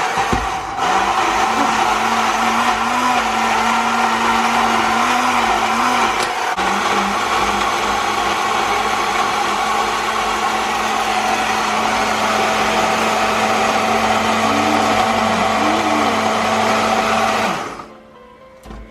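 Electric blender running steadily at full speed, chopping raw habaneros, onions, peppers, ginger and chillies into a seasoning paste. It cuts off suddenly near the end, once the mix is nicely blended.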